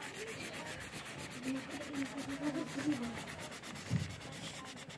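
Felt-tip marker scratching back and forth on notebook paper in quick strokes while colouring in.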